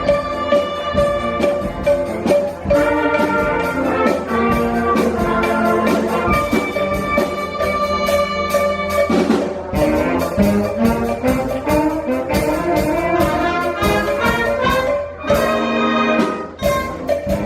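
Middle school band playing an upbeat number, brass carrying the tune over a steady percussion beat.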